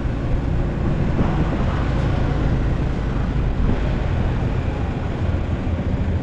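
Motorcycle running steadily on the road, a constant low rumble of engine and road noise.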